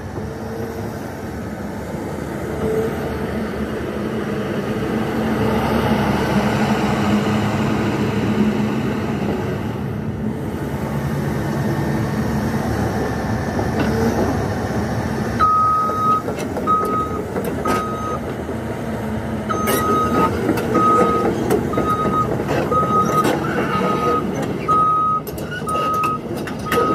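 A 2013 CAT 320EL hydraulic excavator's diesel engine running and working its hydraulics as the boom and bucket move, swelling a few seconds in. From about halfway through, the travel alarm beeps steadily, about one and a half beeps a second, as the machine moves off on its tracks, with sharp clanks near the end.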